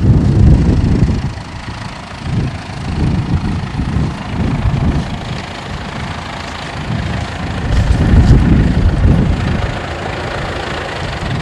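Tractor engine running, a low rumble that swells and fades unevenly, loudest at the start and again about eight seconds in.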